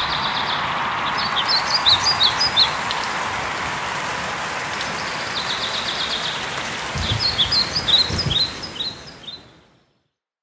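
Birds chirping in two quick runs of short calls over a steady outdoor hiss, with a few low thuds near the end; it all fades out about nine and a half seconds in.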